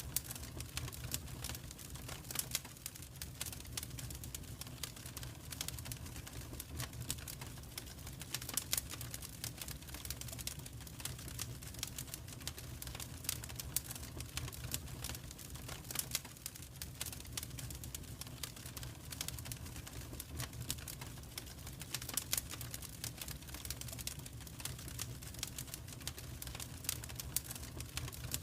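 Wood fire in a fireplace crackling, with dense irregular pops and snaps over a low steady rumble.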